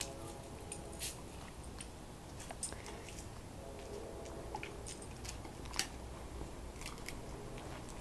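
Scattered sharp cracks and crunches of a dog chewing on a wooden stick, irregular and fairly faint.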